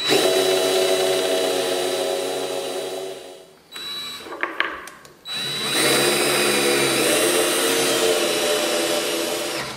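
Cordless drill boring into plywood with a 7/8-inch Forstner bit, countersinking a hole for a threaded insert; the motor runs steadily for about three and a half seconds, then winds down. After a pause with a few short bursts, the drill runs again for about four seconds, boring a smaller hole with a twist bit, its pitch dipping briefly under load.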